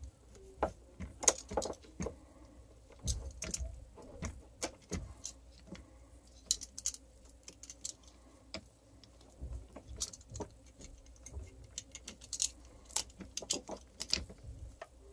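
Irregular small clicks and rustles of hands working wires and plastic wire nuts inside an opened hammer drill's housing, with a small screwdriver.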